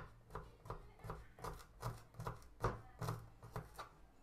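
Kitchen knife slicing shallots on a wooden cutting board: a run of quick knife strokes knocking on the board, about three a second, that stop shortly before the end.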